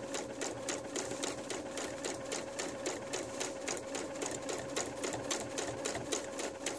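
Electric sewing machine stitching a seam through quilting cotton at a steady speed: a steady motor hum with rapid, even clicks of the needle.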